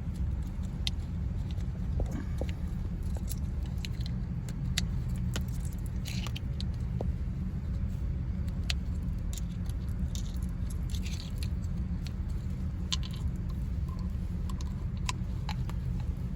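Small metal clicks and rattles of screwdriver bits being handled and set into the bit holder of a Klein 14-in-1 screwdriver's handle, over a steady low rumble.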